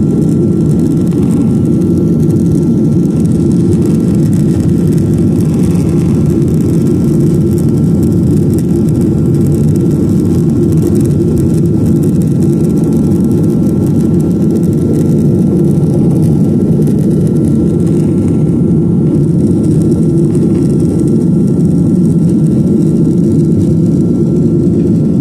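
Steady roar of a Boeing 737-900ER's CFM56-7B jet engines and the airflow, heard inside the cabin in flight, with a faint steady whine above it.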